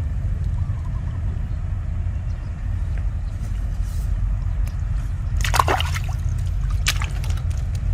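Water sloshing and splashing in shallow water, with a louder splash about five and a half seconds in and a smaller one about a second later, over a steady low rumble.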